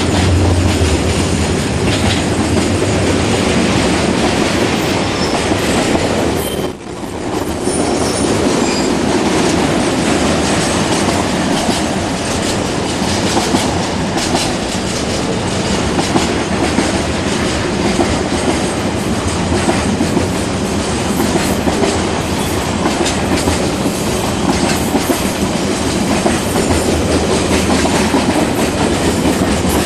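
Freight train wagons rolling past close by, a steady loud rattle of wheels running over the rails. The noise drops briefly about seven seconds in, then carries on.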